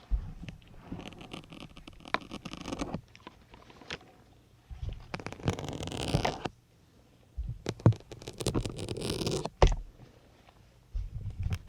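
Syringe needles being pulled back out of a soft sponge one after another: about four drawn-out scraping, zipper-like pulls of a second or two each, with short pauses between. A sharp click comes at the end of the third pull.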